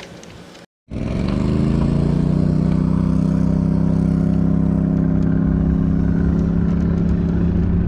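A faint room hum, cut off about a second in, then a boat's engine running steadily under way. Its pitch climbs slightly over the first moment and then holds at a constant low drone.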